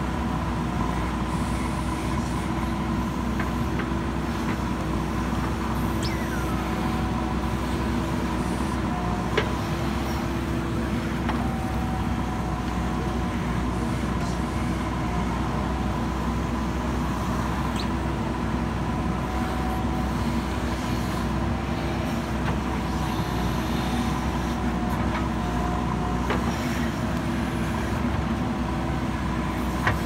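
JCB backhoe loader's diesel engine running steadily while the backhoe arm digs out soil and roots. There are a few faint knocks, with a sharper one about nine seconds in.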